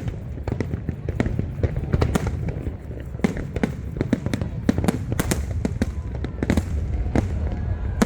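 Aerial fireworks exploding in a rapid, irregular barrage of sharp bangs and crackles over a continuous low rumble.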